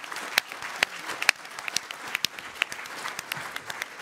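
Audience and panellists applauding: many hands clapping in a dense, steady patter.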